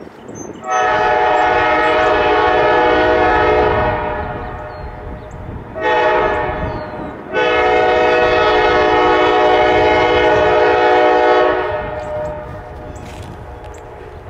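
ALCo RS11 diesel locomotive's air horn sounding three blasts, long, short, then long, over the low rumble of the train.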